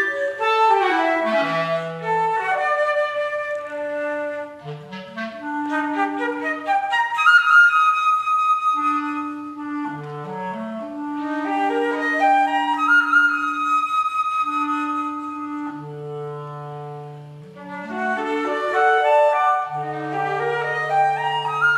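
Flute and B-flat clarinet duet, a lyrical slow movement played live. The clarinet repeatedly runs upward from long held notes low in its range while the flute holds and moves on higher notes.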